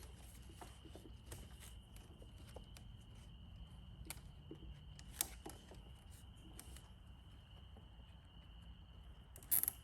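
Faint, scattered clicks and taps of hands working in the engine bay, fitting a plastic cable tie around the catch can, with a sharper burst of clicks near the end.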